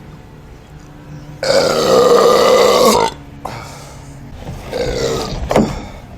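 A man belching: one long, loud burp lasting about a second and a half, then a shorter, quieter burp that ends in a sharp click.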